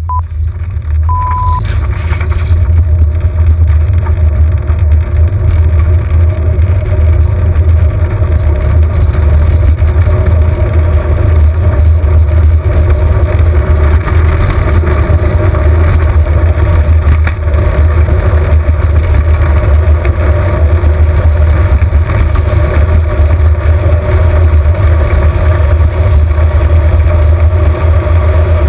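Short electronic beep about a second in, then the soapbox cart's wheels rolling downhill on asphalt: a loud, steady rumble and rattle carried through the cart's body to the camera mounted on it.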